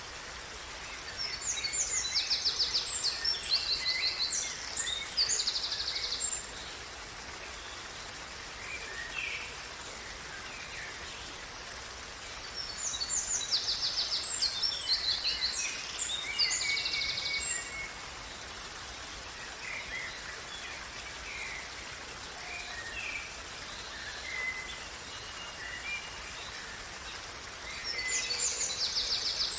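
Stream water running steadily, with songbirds singing over it. Three bursts of fast, high trilled song come in, one near the start, one in the middle and one near the end, with shorter scattered chirps between them.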